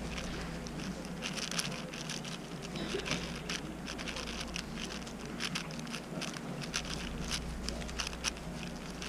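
Moyu Weishi 6x6 speedcube being turned fast by hand, its plastic layers clicking and clacking in quick, irregular bursts. A steady low hum runs underneath.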